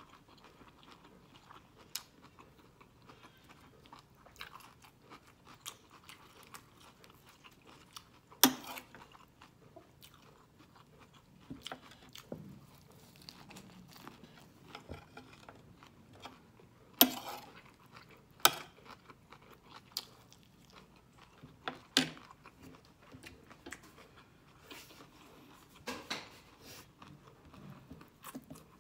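Close-miked chewing of a vegetable and shrimp stir fry with lettuce: steady soft mouth sounds, broken by several sharp crisp crunches. The loudest crunches come about eight and seventeen seconds in.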